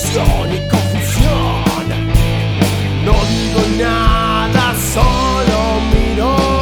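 Rock music instrumental passage: a lead guitar bends notes upward over a steady bass line and regular drum hits.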